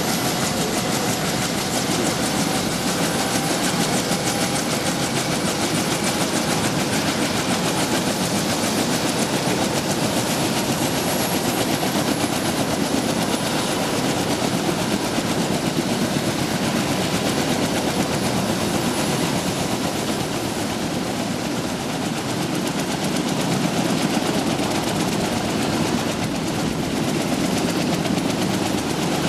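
Kaman K-MAX helicopter running on the ground with its turboshaft engine and intermeshing twin rotors turning at speed, a steady loud din of rotor chop and engine noise.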